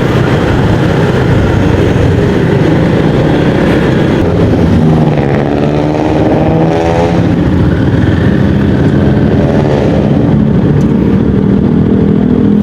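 Yamaha XMAX 250 scooter's single-cylinder engine running under way, mixed with a steady rush of wind and road noise; the engine pitch climbs for a couple of seconds around the middle as it speeds up.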